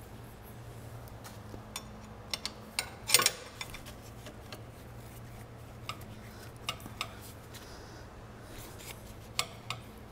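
Irregular metallic clicks and clinks of a hand tool on the drain bolt at the bottom of a Honda Super Cub's engine as the bolt is tightened, with a louder cluster of clanks about three seconds in. A steady low hum runs underneath.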